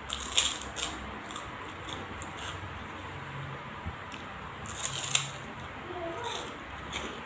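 Crunching on a crisp krupuk cracker: bites and chewing crunches come in two main clusters, about half a second in and again around five seconds in, with lighter crunches between.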